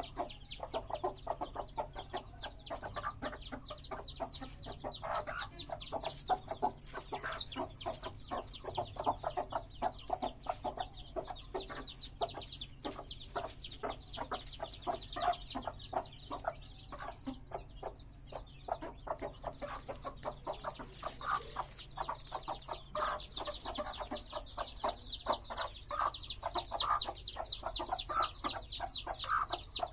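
A hen clucking among a brood of chicks, which keep up a dense chorus of rapid high-pitched peeps. The peeping grows louder in the last third.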